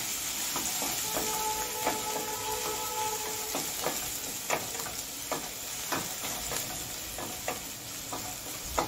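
Chopped onion frying in hot oil in a stainless steel kadhai, a steady sizzle, while a spatula scrapes and knocks against the pan in irregular strokes as it is stirred.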